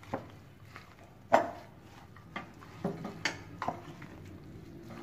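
Spatula stirring a wet mix of grated potato, carrot and onion with egg and flour in a glass bowl: irregular knocks and clicks against the bowl, the loudest about a second and a half in, with several more after it.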